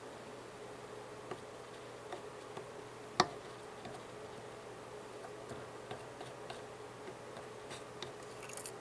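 Small tools clicking and tapping on a TV power board while capacitors are desoldered, with one sharp click about three seconds in, over a steady faint hum.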